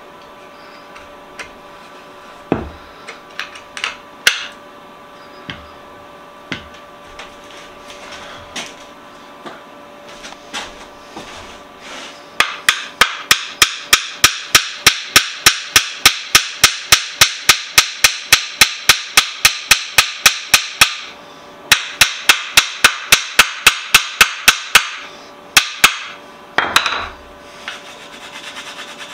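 Small hammer tapping on the wooden jaw of an antique leather stitching horse. A few scattered taps give way, about twelve seconds in, to a long run of quick, even strikes, about four or five a second. After a brief pause a second run follows, then a few last knocks.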